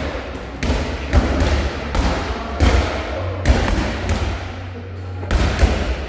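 Medicine balls landing with repeated heavy thuds as several people throw them, at an uneven pace of about one to two impacts a second.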